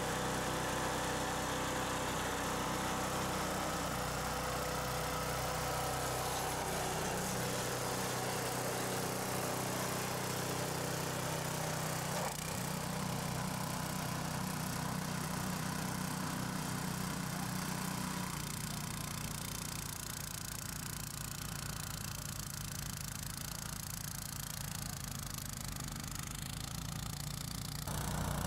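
Huter SGC 6000 snow blower's petrol engine running steadily, freshly started warm. It is a little quieter in the last third.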